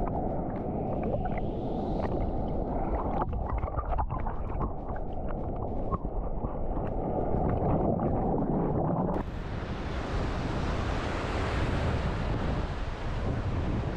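Wind on the microphone and ocean surf, muffled with scattered small ticks at first. About nine seconds in it changes suddenly into a full, open hiss of surf and wind.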